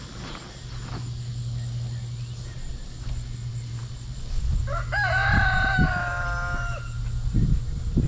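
A rooster crows once, a call of about two seconds starting about four and a half seconds in, over the low steady hum of the idling backhoe engine.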